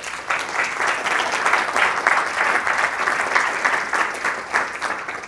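Audience applauding: many people clapping at once, starting together and beginning to thin out near the end.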